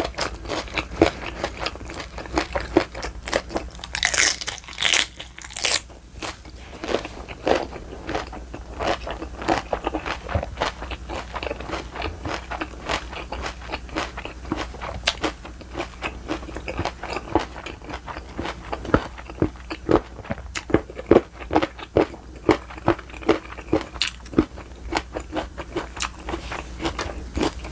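Close-miked chewing and biting of spicy raw oyster salad and boiled pork: many quick, wet mouth clicks and crunches in an uneven stream, with a louder run of them about four to six seconds in.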